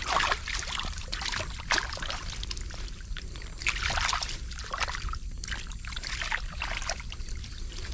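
Shallow muddy water splashing and sloshing in irregular bursts as a hand works in a small pool and a hooked frog thrashes in it.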